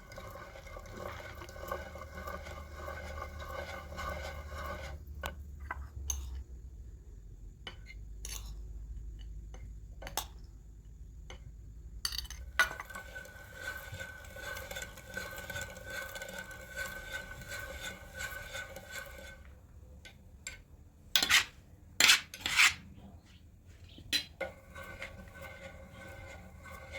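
Kitchen utensils and dishes clinking and scraping during cooking, with scattered light knocks and three louder clatters close together about two-thirds of the way through.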